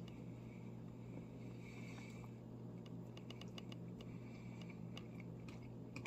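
Faint scattered clicks and light scrapes, like a utensil against a plastic microwave-meal container, over a steady low hum.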